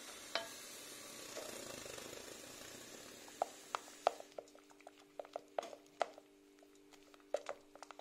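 Wooden spoon stirring simmering caramel cream sauce in a metal saucepan. A soft bubbling hiss fills the first half, then the spoon knocks against the pan a dozen or so times.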